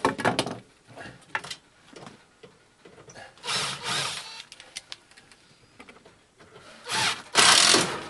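Cordless drill/driver driving screws into sheet metal in two runs of about a second each, one a few seconds in and one near the end, with a few short knocks of handling at the start.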